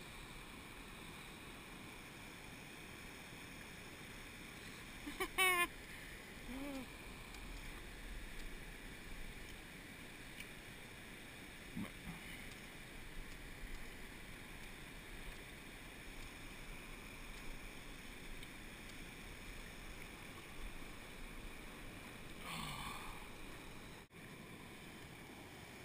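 Steady rush of a rocky mountain trout stream's riffles and small falls, with a brief loud squeak about five seconds in.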